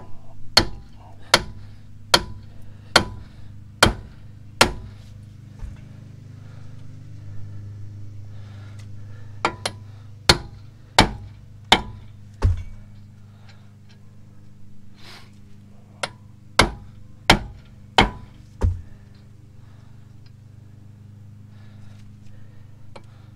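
A small sledgehammer repeatedly strikes the end of a front CV axle shaft through its threaded-on axle nut, hammering the stuck splined shaft back out of the wheel hub. Sharp metal blows come in three runs of five or six, less than a second apart, with short pauses between runs.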